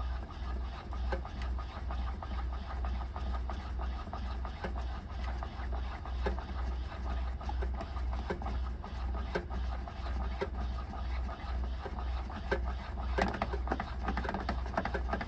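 Hand-cranked erekiteru, a friction static-electricity generator, running: a low rhythmic pulsing about twice a second with each turn of the crank, over a steady scraping and many small sharp clicks.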